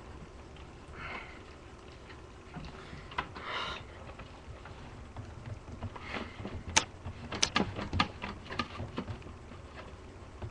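Computer parts being handled and pushed into a desktop case: scattered clicks and knocks, with a quick run of sharper clicks from about six to nine seconds in, and brief rustling scrapes before that.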